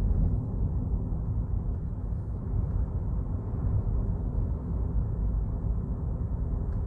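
A car driving at road speed, heard from inside the cabin: a steady low rumble of engine and tyre noise.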